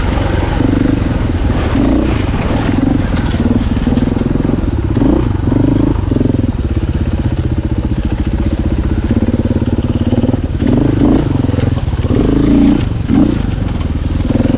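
Dirt bike engine running on a trail, its pitch rising and falling again and again as the throttle is worked.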